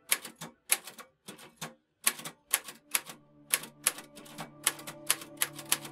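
Manual typewriter typing a short title line: an uneven run of sharp clacks as the typebars strike the paper, with a brief pause a little before two seconds in.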